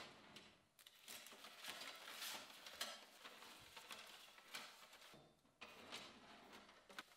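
Faint handling sounds from a metal filing cabinet: drawers sliding open and shut, with contents rummaged through. It comes as a run of short scrapes and clicks, a louder one near the end.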